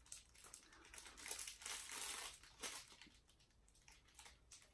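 Faint, irregular crinkling of a snack wrapper as individually wrapped Polish gingerbread hearts are handled and unwrapped, busiest in the middle.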